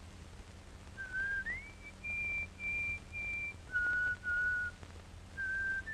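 A man whistling a slow tune of about nine clear held notes, with an upward slide between the first notes, then three repeated high notes and a few lower ones.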